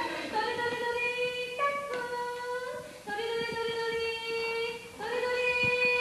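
Harmonica playing a slow melody of long held notes, about five of them, each changing pitch in a clean step.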